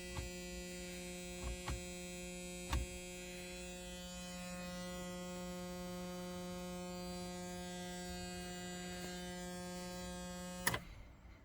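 A steady electric buzz with many overtones and a few faint clicks; it stops at once with a click near the end.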